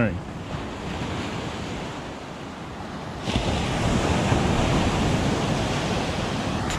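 Surf breaking and washing up a sandy beach, with wind buffeting the microphone; the noise gets louder about three seconds in.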